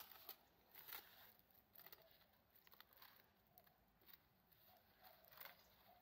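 Near silence, with faint scattered crackles and rustles from gloved hands handling an old wooden hive frame of dried-out wax comb.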